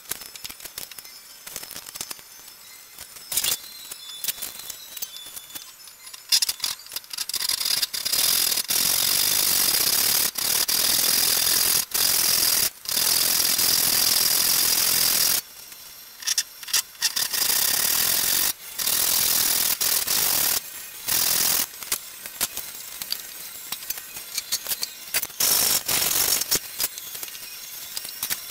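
Hand saw cutting through a thick wooden post clamped to a workbench, in long back-and-forth strokes. The first few seconds hold only scattered clicks and knocks before the sawing starts.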